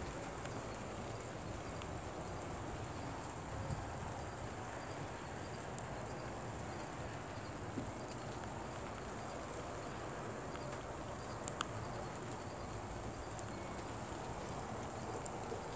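Steady night-time background hiss with a thin, high, steady tone. A few faint sharp knocks break through it: one about 6 seconds in, a quick double knock about 11 seconds in, and another shortly after. These are the knocks of an unidentified source outside the house.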